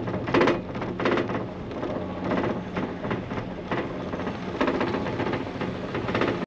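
Sky Trail gondola running along its cable: a steady mechanical rumble and hum with irregular rattling clacks every half second or so.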